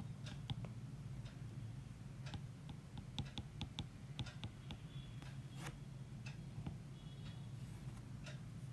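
Faint, irregular light clicks, a few a second at times, over a low steady hum.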